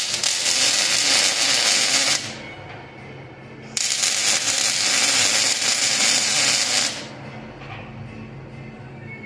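Welding arc crackling in two bursts, about two and three seconds long, each starting and stopping abruptly, over a steady low hum.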